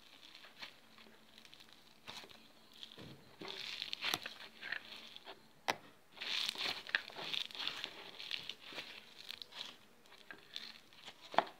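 Yellow slime being squeezed, stretched and pulled apart by hands for ASMR, giving fairly quiet, irregular clicks and crackles that come in two busier stretches, about three seconds in and again after six.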